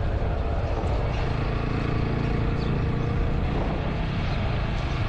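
TVS Apache RTR motorcycle's single-cylinder engine running steadily at cruising speed, with wind and road noise on the rider's microphone.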